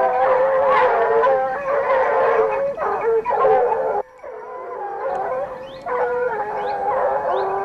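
A pack of Ariégeois hounds giving tongue on a wild boar's trail, many clear voices baying and crying over one another. The chorus drops away briefly about four seconds in, then swells again.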